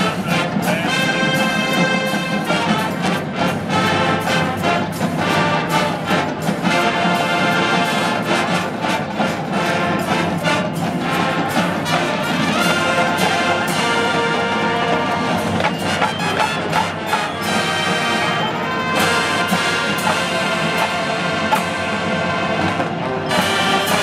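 College marching band playing a brass-heavy piece: trumpets and trombones sounding full chords over a drumline's steady beat.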